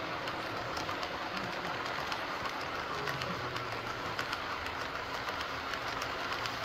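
Model freight train boxcars rolling along the track in a steady rumble, with faint irregular clicks from the wheels.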